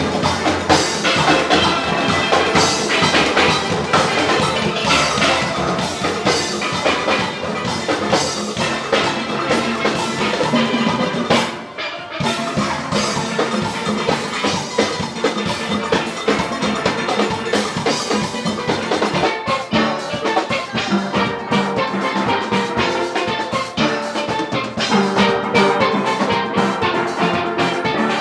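Upbeat music led by steelpan over a drum beat, dropping out briefly about twelve seconds in.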